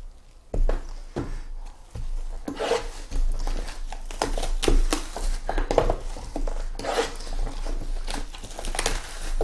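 Plastic shrink wrap crinkling and tearing as it is stripped from cardboard trading card boxes and crumpled by hand. Irregular sharp clicks and knocks come from the boxes being handled and set down on the stack.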